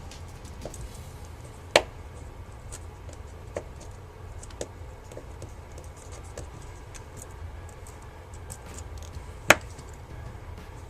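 Small clicks and taps of a screwdriver and tiny screws as the screen screws are taken out of an iPhone 4. Two sharp clicks stand out, about two seconds in and near the end, over a low steady hum.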